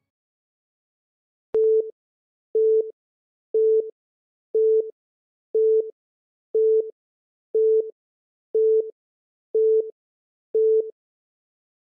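Quiz countdown timer beeping: ten short, identical beeps at one steady mid pitch, one a second, counting down the time left to answer.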